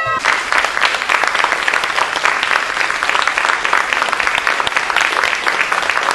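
Audience applauding: dense, steady clapping that starts right as a sung chord breaks off at the very start.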